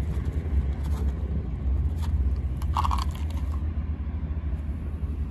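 Stray cat crunching dry kibble, a few crisp crunches about two to three seconds in, over a steady low rumble.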